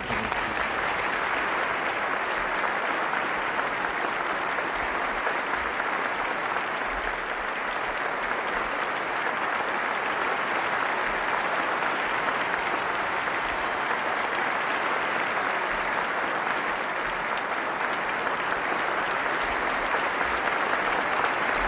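Large audience applauding, breaking out suddenly and continuing at a steady level.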